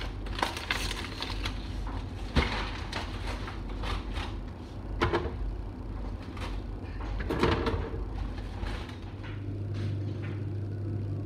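Household handling sounds in a kitchen: a run of knocks, bumps and clatter as things are picked up and set down, loudest about two, five and seven seconds in. A steady low hum sets in about nine seconds in.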